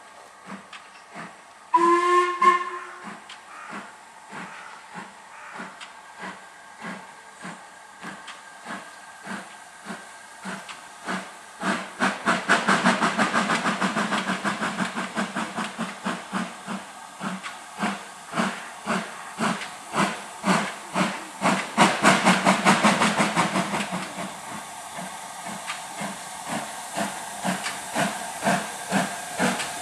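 LMS Stanier Black Five 4-6-0 steam locomotive 45379 gives a short whistle about two seconds in, then pulls away with a goods train. Its exhaust beats start slow and quicken, loudest in the middle and easing slightly near the end, over hissing steam.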